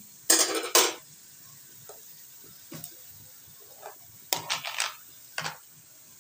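Metal spoon scraping and stirring chicken pieces in a black wok, with a faint sizzle of frying between strokes. Two loud scrapes come just after the start, then a few shorter ones around the middle and a cluster a little before the end.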